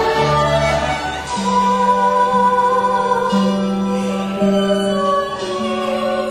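Stage-musical pit orchestra playing, with a woman singing over it. Held low notes change about once a second under a gentle melody.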